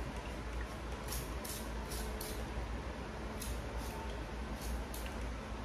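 Plastic trigger spray bottle squirting in a series of short hisses, about eight of them, mostly in pairs.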